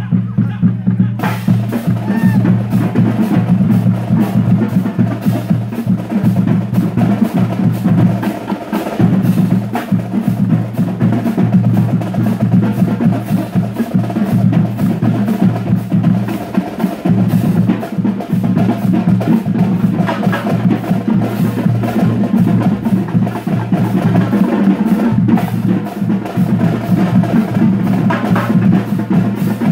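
Marching band drumline playing a continuous cadence on snare and bass drums, the full beat kicking in about a second in.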